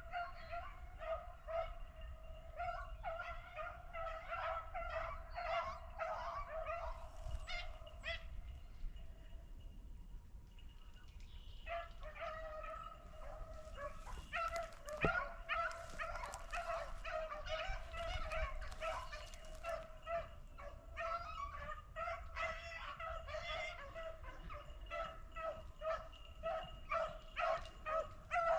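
Pack of beagles baying in repeated calls as they run a rabbit on its scent trail. The baying breaks off for about three seconds partway through, then picks up again.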